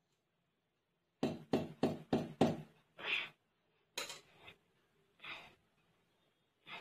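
A steel mesh strainer upturned on a cotton towel, knocked five times quickly, about three a second, to shake out the soaked rice. This is followed by a few short, separate swishes of a hand spreading the damp rice grains over the towel.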